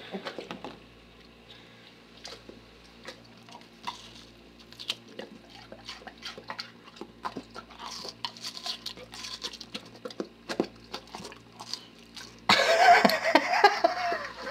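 A yellow retriever dog chewing juicy watermelon flesh taken from a hand, with scattered wet smacks and clicks of its mouth. Near the end the sound jumps suddenly to a louder, fuller noise.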